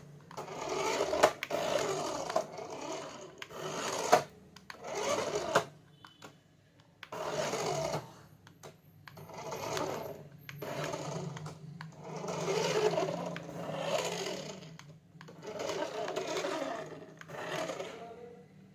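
Toy remote-control car's small electric motor and gears whirring in a series of bursts of a second or two, with short pauses between, as the car is driven in spurts.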